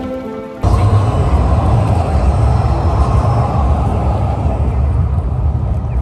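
Background music cuts off about half a second in, giving way to loud outdoor city street noise with a heavy, uneven low rumble.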